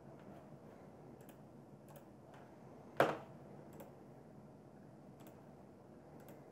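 Faint, scattered clicks of a computer mouse and keyboard being worked, with one sharp, much louder click about three seconds in, over a low steady hum.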